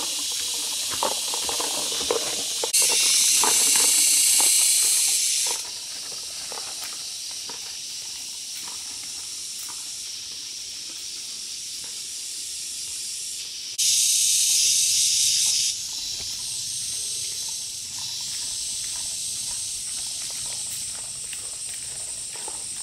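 Insects in a tropical forest keep up a steady high-pitched hiss. It swells louder twice for about two to three seconds each time, starting and stopping abruptly, with faint scattered clicks and knocks beneath.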